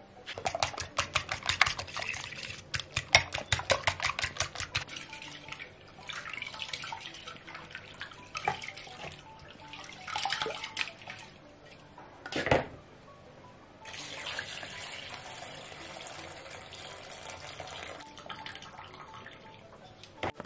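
Water splashing and running in a stainless steel pot as grains are rinsed by hand, ending in a steady hiss of running water. It follows a run of rapid clicking, about five a second, at the start.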